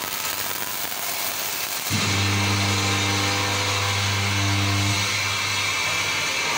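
Flash butt welding machine flashing, a dense crackling and sputtering of arcing metal as sparks fly. About two seconds in, a loud deep electrical hum from the machine starts suddenly, holds for about three seconds while the joint glows red-hot, then weakens.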